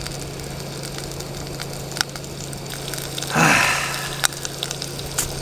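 Food sizzling in a hot pan with scattered small crackles, then a louder burst of sizzling about three seconds in that fades over half a second, as sauce or food hits the pan. A steady low hum runs underneath.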